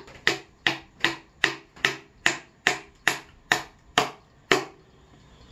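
Claw hammer driving a nail into the lap joint of a wooden five-frame nuc hive box: about a dozen steady, even blows, roughly two and a half a second, that stop about four and a half seconds in.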